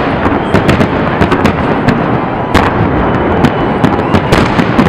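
Fireworks display: aerial shells bursting in quick succession, with dense crackling and many sharp bangs, a loud one about two and a half seconds in.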